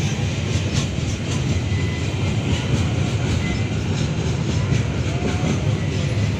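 Wagons of a Babaranjang coal train rolling past close by: a steady low rumble of wheels on rail, with scattered clicks of the wheels over the track.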